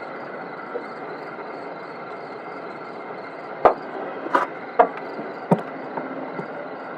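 Four or five sharp clicks and knocks of hand tools on a radiator hose clamp, over a steady background hiss.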